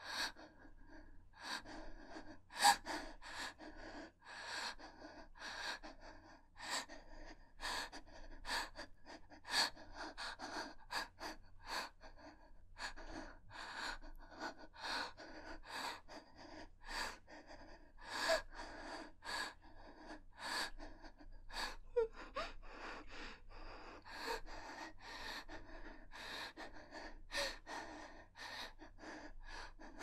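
A woman hyperventilating in fear: quick, ragged gasping breaths in and out, about one or two a second, with brief voiced catches in a few of them.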